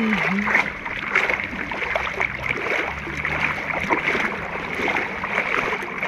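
Seawater splashing and lapping close by, a dense, irregular patter of small splashes, with a brief voice in the background near the start.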